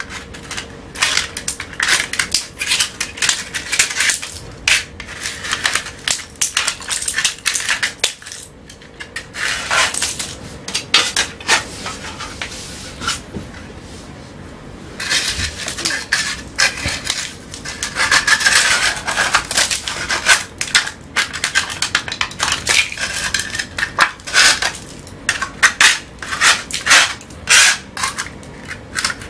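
Flat steel scraper blade scraping loose, flaking plaster and paint off a damp-damaged wall in quick repeated strokes, the metal edge rasping over the hard surface, with short pauses between runs of strokes.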